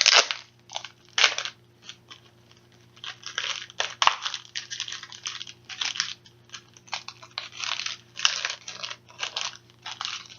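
Crinkling and crunching of plastic packaging being handled in irregular bursts while trading cards are unwrapped from it.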